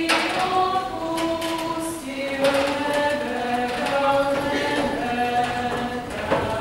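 A group of voices singing a folk song together, long held notes in a slow stepwise melody.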